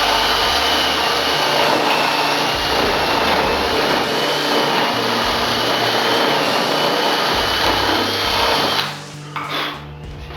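Power drill running steadily at high speed, boring an eye hole into wood, with a high whine; it stops about nine seconds in.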